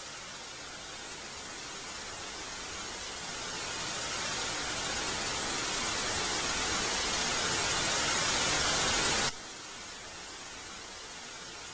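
A rushing hiss like static that swells steadily louder for several seconds, then cuts off abruptly about nine seconds in, over a thin steady high whine.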